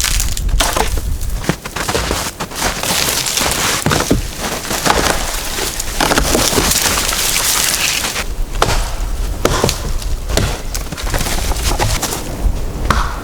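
Dry wood cracking and splintering in a rapid run of sharp snaps, densest in the middle few seconds.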